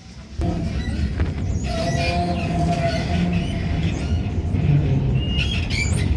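Amsterdam tram running on its rails: a loud low rumble that starts suddenly, with a steady motor whine and brief high wheel squeals near the end.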